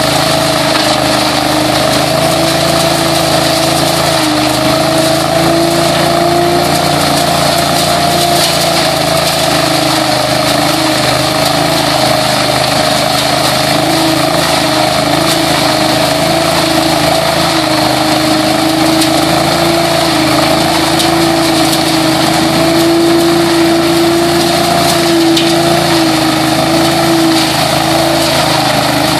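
Billy Goat DL1801VE debris loader with an 18 hp engine running steadily at working speed. Its engine and fan give a constant droning whine over a loud rush of air as leaves are sucked up through the hose.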